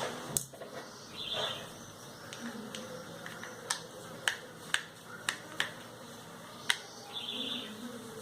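Sharp clicks and taps of small repair tools on a Moto G2 smartphone's casing, about seven in all, mostly bunched in the middle, as stripped screws are worked and the phone is pried open. Two brief buzzing sounds come in, one early and one near the end.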